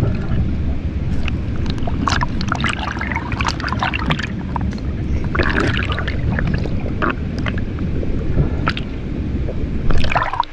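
Underwater action-camera sound in a river: a steady, muffled rush of water with scattered short clicks and crackles, and a louder burst near the end.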